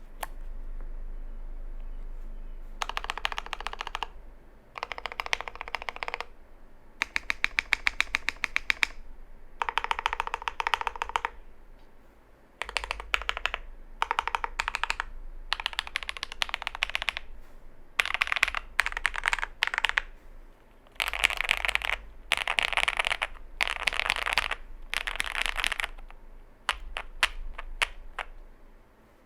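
Fast typing on a Zoom65 gasket-mount custom mechanical keyboard with lubed, filmed JWK linear switches, a PC plate and doubleshot PBT keycaps. The key presses come in bursts of a second or two with short pauses between them, and a few slower, separate keystrokes come near the end.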